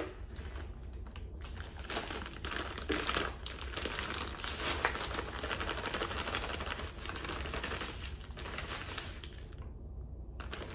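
Plastic bag of light brown sugar crinkling and rustling as it is handled, squeezed and shaken while the sugar is poured from it into a stainless steel mixer bowl.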